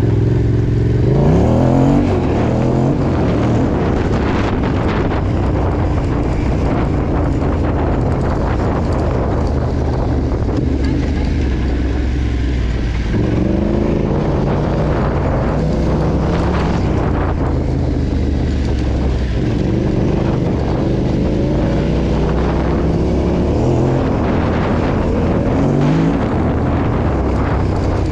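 Yamaha Ténéré 700 rally bike's parallel-twin engine being ridden off-road. The revs climb sharply about a second in, again around the middle, and twice near the end, with steady running in between.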